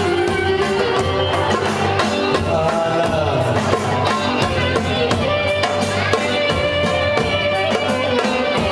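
Greek band playing traditional dance music: a melody of held and sliding notes over plucked strings and a steady drum beat.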